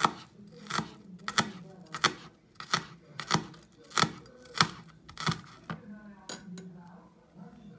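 Kitchen knife chopping red onion on a wooden cutting board: steady single knocks of the blade against the board, about one every two-thirds of a second, stopping near the end.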